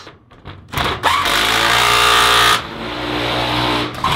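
Makita cordless impact driver spinning up about a second in and hammering a nut tight on a bolt through the corrugated galvanized steel tank wall, then easing off to a lighter, quieter run for the last second or so.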